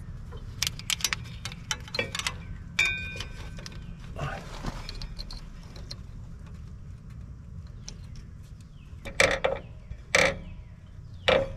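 Hands handling the electrical connector and fittings at an electric PTO clutch under a zero-turn mower: scattered light clicks and taps, a short metallic ring about three seconds in, and three louder knocks near the end as the connector is worked into place.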